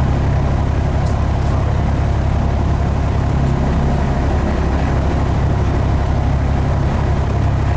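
Cessna 172's piston engine and propeller running steadily, heard inside the cabin as a loud, even, low drone.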